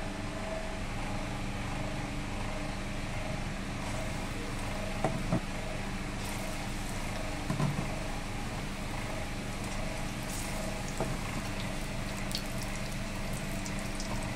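Besan-battered ajwain-leaf fritters frying in hot oil in a kadai: a steady sizzle over a constant electric hum, with a few soft knocks.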